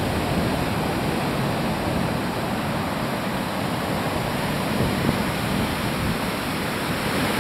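Ocean surf breaking on a sandy beach: a steady rush of noise with no break in it.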